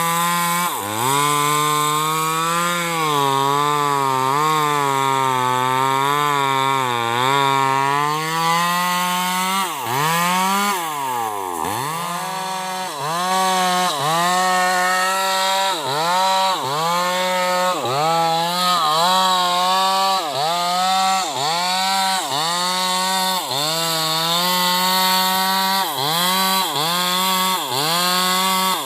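Bosco 5880 two-stroke chainsaw running at high revs and cutting sengon wood, its pitch sagging under the load of the cut. About ten seconds in it drops nearly to idle and revs back up, then dips briefly about once a second.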